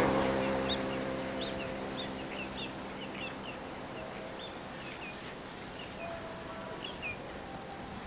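Birds calling: many short, high calls, scattered a few a second, over a low outdoor hush. A rushing noise fades away over the first couple of seconds.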